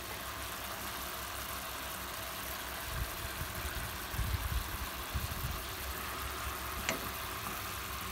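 Pork shoulder steaks frying in olive oil and butter in a pan: a steady sizzle with the pan juices bubbling. A few low bumps come around the middle, and a sharp click comes near the end.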